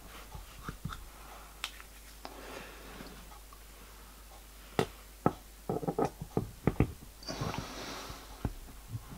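Scattered light clicks and knocks of a small metal steam cylinder block and brass piston being handled, with a cluster of taps past the middle and a short rustle near the end.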